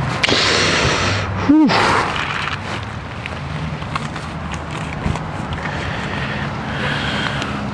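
Outdoor background with a low steady hum and stretches of wind noise on the microphone. A short falling vocal sound comes about a second and a half in.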